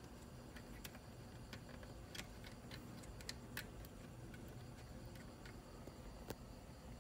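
Faint, irregular light clicks and ticks from test leads and banana plugs being handled on an ECU test board, over a low steady background hum.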